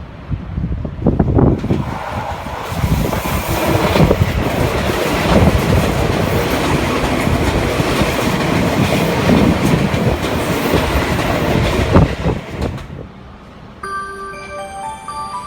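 Japanese electric passenger train running loudly along the track at the platform, with a rumbling, hissing rail noise that dies away near the end. A platform melody of short stepped electronic tones then starts, the chime that comes before the doors close.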